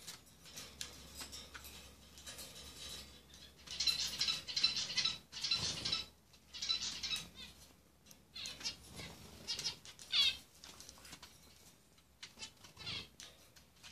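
Conures giving bursts of harsh, raspy chattering calls, several in a row through the middle, with a short last burst near the end.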